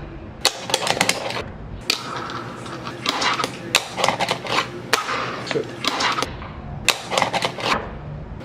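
Fingerboard tricks on a small ramp: irregular clacks and taps of the board's deck and wheels popping and landing, between short stretches of rolling noise.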